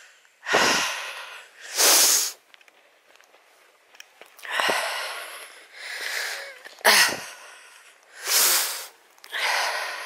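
A person breathing hard while walking uphill: about seven loud, noisy breaths in and out, roughly one every second and a half.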